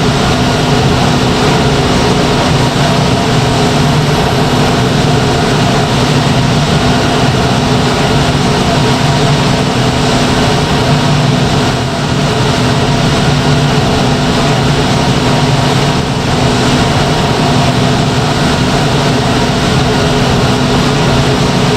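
RBWR 2.0 steam turbine running steadily: a loud, even rushing sound with several steady humming tones in it.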